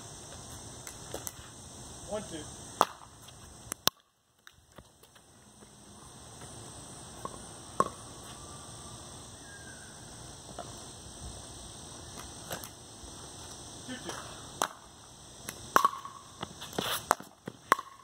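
Pickleball paddles hitting a plastic pickleball during a rally: sharp single pops a second or several apart, coming faster near the end, over a steady high hiss.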